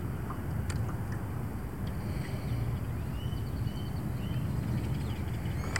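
Wind buffeting the microphone as a steady, rough low rumble over open water. Faint bird chirps come in about two to four seconds in.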